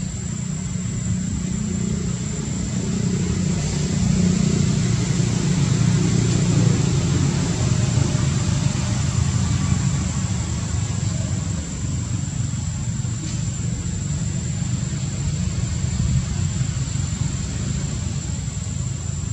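A motor running steadily with a low rumble that grows a little louder about four seconds in and eases off around eleven seconds. A thin, high, steady whine sits above it throughout.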